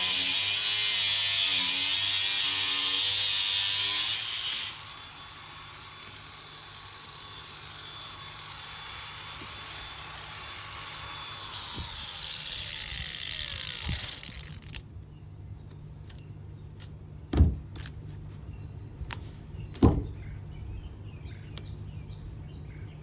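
A power tool runs loudly, drops sharply in level about five seconds in and keeps running more quietly, its pitch sinking until it stops about fifteen seconds in. After that a low steady hum remains, broken by two loud thumps a few seconds apart.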